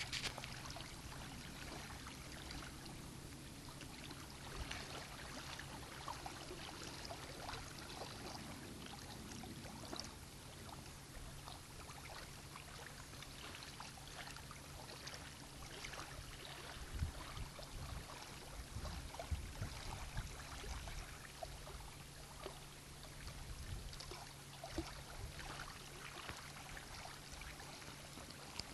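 Faint lakeshore ambience: small waves lapping at the rocky bank, with a low steady hum, scattered light ticks and clicks, and a few low rumbling bumps partway through.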